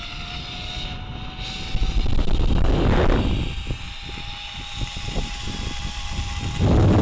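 Zipline trolley whirring along the steel cable during a ride, with wind rushing over the microphone. It is a low, steady rush with a faint whine, swelling louder twice, about three seconds in and again near the end.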